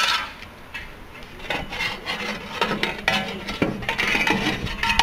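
Torn-off metal fan blades of an air-conditioner condenser being worked loose by hand, scraping and rubbing in a run of short, irregular strokes. The blades have sheared off their rivets and are jammed in the fan.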